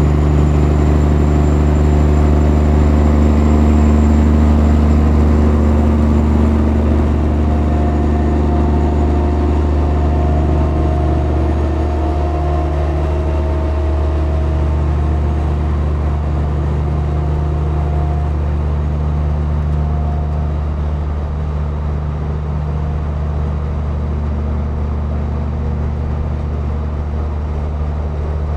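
Heavy truck's diesel at steady highway cruise, heard from close alongside: a loud, even, low drone with tyre and road noise. The truck is a 2007 Peterbilt 379 with a Caterpillar 3406E inline-six.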